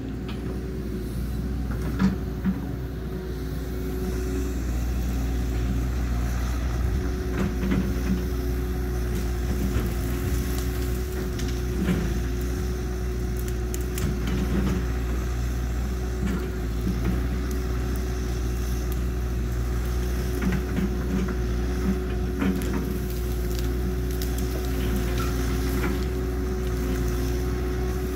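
Cat 314 hydraulic excavator's diesel engine running steadily under load, with a constant whine, while it works into the trees; scattered sharp knocks and cracks come through it.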